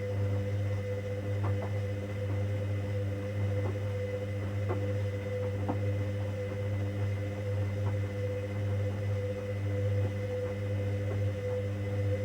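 Hoover Dynamic Next washing machine in the main wash of a 90 °C cotton programme: a steady motor hum with a higher tone held over it, and faint knocks now and then.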